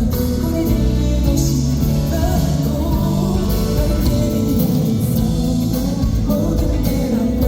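A male singer singing live over instrumental accompaniment.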